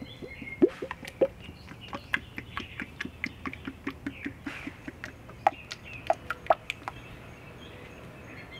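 Motor oil glugging out of an upturned quart bottle into a funnel as it is poured into a small engine's crankcase: a quick run of wet pops, about three or four a second, that stops about seven seconds in.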